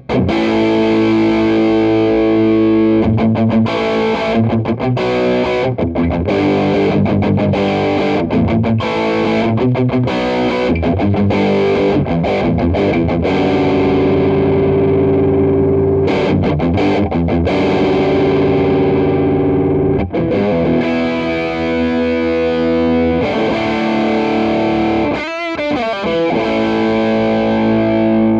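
Electric guitar played through a Donner Morpher distortion pedal on its 'tight' setting, through a clean amp: choppy distorted riffs broken by short stops, alternating with ringing held chords. The pedal's treble knob is rolled up and down, and the tone is a little lighter on bass than the 'classic' voicing.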